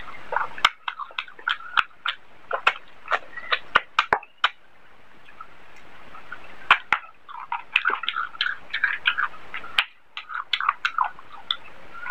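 Close-miked ASMR eating sounds of rice and chicken curry being eaten by hand: chewing with wet smacks and sharp lip and tongue clicks. The sounds ease off briefly about halfway through.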